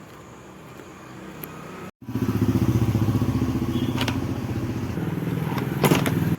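Rotary hammer drill running, starting about two seconds in with a fast, even pulsing and a couple of sharp clicks, then cutting off abruptly near the end.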